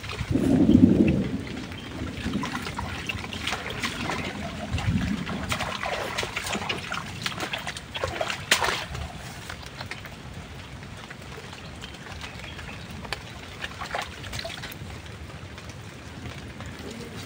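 Steady rain with trickling water, with scattered short knocks and clicks and a louder low rush about a second in.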